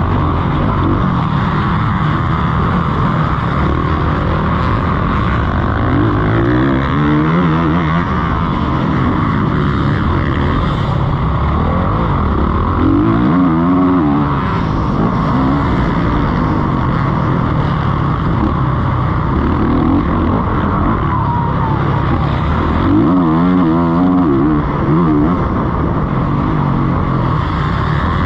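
Motocross bike engine heard from the rider's own onboard camera, running hard at race pace over a rush of wind. The revs climb and drop several times as the rider works the throttle and gears.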